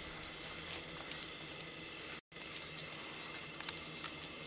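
A swarm of beetles flying around a tree, a steady hiss that sounds like a swarm of bees, with a few faint ticks. A split-second gap breaks it about halfway.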